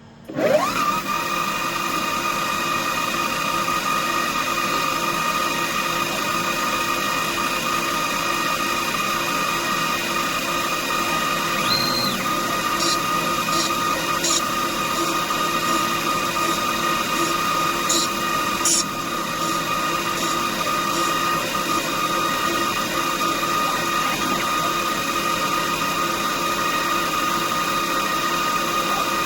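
DIY CNC machine spindle motor spinning up with a quick rising whine, then running at a steady speed. Light ticks come through now and then in the middle.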